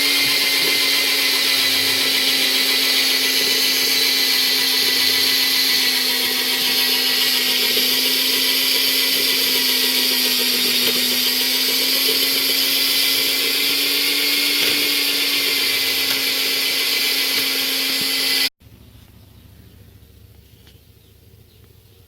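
Homemade metal lathe running under power, a steady mechanical whine with a constant tone. It stops abruptly about eighteen seconds in.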